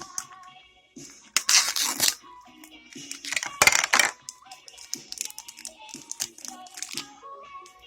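Light music playing, broken twice by loud bursts of crinkling packaging being handled or torn open, with small clicks and rattles in between.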